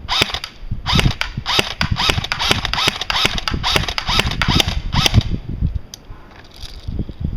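G&P M4 airsoft electric rifle with a metal gearbox firing 0.2 g BBs in a quick run of single shots, about three a second; each shot is a sharp mechanical clack of the gearbox cycling. The shooting stops about five and a half seconds in, with a few more shots near the end.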